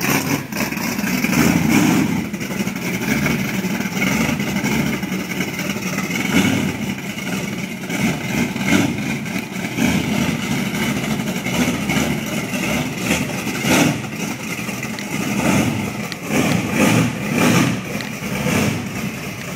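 Small-block Chevrolet V8 of over 400 cubic inches in a short-bed Chevy Silverado pickup, running as it warms up from cold. Its sound swells and dips unevenly every second or two, and the owner thinks it might be low on gas.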